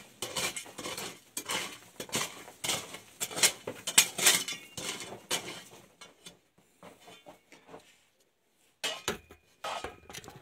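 Hand tool digging and scraping into stony ground: irregular clinks of metal on rock and rattling stones, busy for about six seconds, then quieter with a couple of short scrapes near the end.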